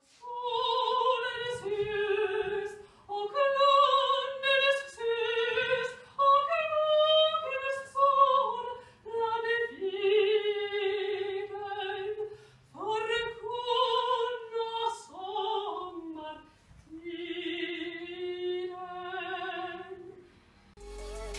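A woman singing solo in an operatic style: long held notes with vibrato, sung in several phrases with short breaks between them.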